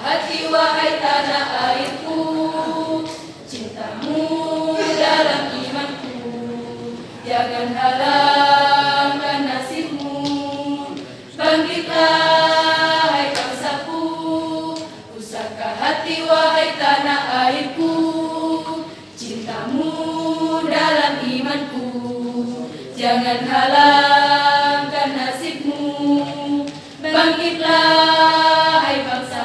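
Women's choir singing together in long held phrases of about four seconds each, with short breaks for breath between them.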